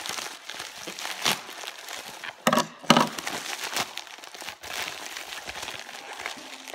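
A mailed package being opened by hand: packing material crumpling and crinkling, with two louder sharp rips or cracks about two and a half and three seconds in.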